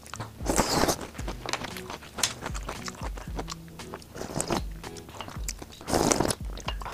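Two crunchy bites of food, about half a second in and near the end, with chewing and small mouth clicks between, over background music with a steady beat.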